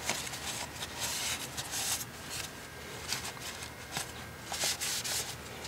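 Shop towel rubbing and rustling as it wipes around an engine's oil filler opening, in short irregular swishes with a few faint ticks.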